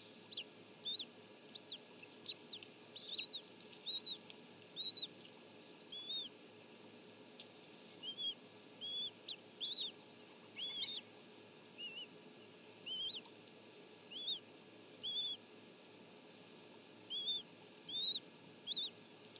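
Bald eaglet chicks peeping as they beg for food: about two dozen short, high cheeps, each rising then falling in pitch, coming in an irregular string.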